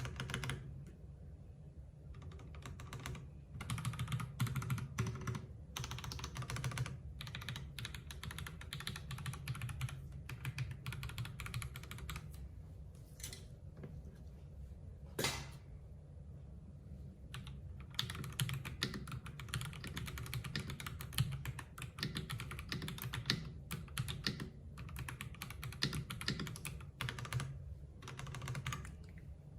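Typing on a Fuhlen H95s gasket-mount mechanical keyboard with Fuhlen Yellow switches and PBT keycaps: rapid runs of key clicks with short pauses, and one louder single keystroke about halfway through.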